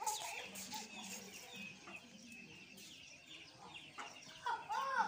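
Chickens clucking, with a run of loud, evenly spaced clucks a little past four seconds in, over steady high chirping throughout.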